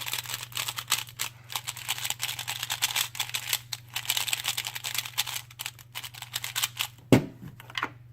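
Valk 3x3 speedcube being turned quickly by hand: a rapid, uneven run of light plastic clicks and clacks from its layers, with one louder knock about seven seconds in.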